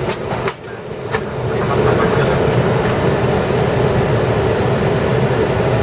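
Steady cockpit noise of an Airbus A320 on final approach: airflow and engine noise with a hum in the middle range. A few brief clicks and a short dip in level come in the first second or so.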